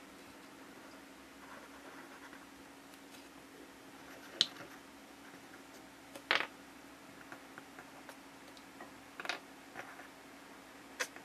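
Small white plastic toy bowls being handled and set down, making about four short, light clicks and taps spread over several seconds, over a faint steady hum.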